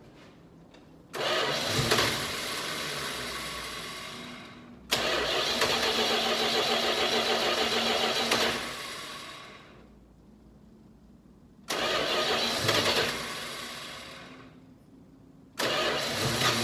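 Starter cranking the Charger's 318 V8 in four tries of a few seconds each, with pauses between, as it struggles to start from cold. The owner suspects the carburetor is out of adjustment or the spark plugs are fouling.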